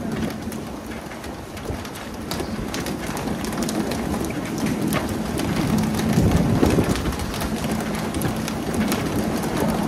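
Dense patter of water falling on a surface, like heavy rain, with many scattered sharp taps and a faint steady low hum underneath; it swells a little around the middle.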